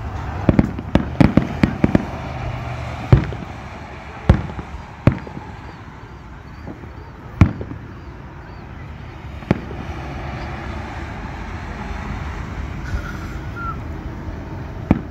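Aerial firework shells bursting: a quick cluster of about eight sharp bangs in the first two seconds, then single bangs every second or two.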